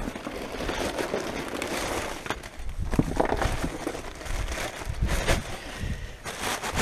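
Rummaging through rubbish in a dumpster: bags and loose items rustling, crackling and knocking at irregular intervals, over a low rumble of wind on the microphone.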